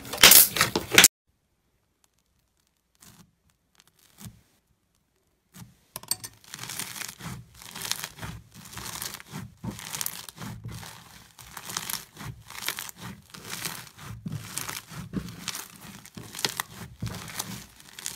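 Yellow foam-bead slime (floam) being kneaded and squeezed by hand, giving a dense crunchy crackling that swells with each squeeze. It opens with a few loud wet pops from a glossy green slime being pressed, then a few seconds of silence before the crackling starts.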